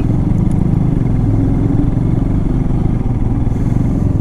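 Royal Enfield Himalayan's single-cylinder engine running steadily under the rider at a constant pace, with no change in revs.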